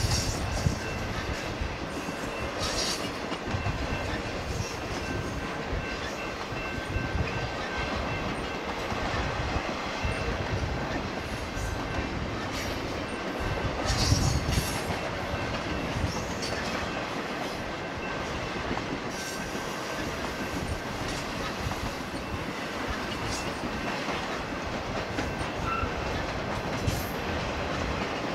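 BNSF intermodal freight train's flatcars loaded with highway trailers rolling past: a steady rumble of steel wheels on rail with clickety-clack over the joints, and a louder clatter about halfway through.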